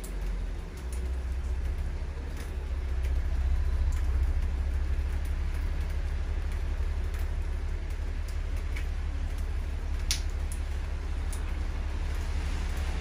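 Rainy-day street ambience: a steady low rumble under an even hiss, with scattered faint ticks of drips and one sharper tick about ten seconds in. The hiss swells near the end.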